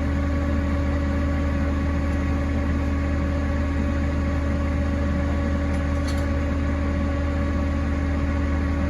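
A vehicle engine idling steadily at an even pitch.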